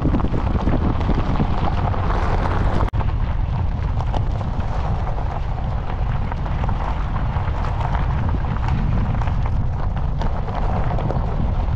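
Wind buffeting the microphone: a loud, steady low rumble with crackle. For the first three seconds it is mixed with a vehicle rolling over a rocky dirt track, then the sound breaks off for an instant.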